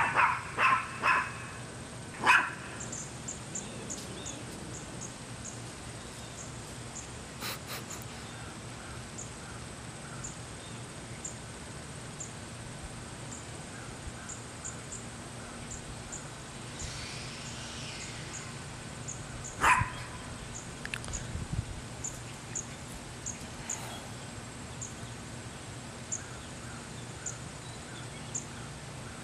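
Small dog barking: a quick run of four or five barks, another a couple of seconds later, then a single bark about twenty seconds in.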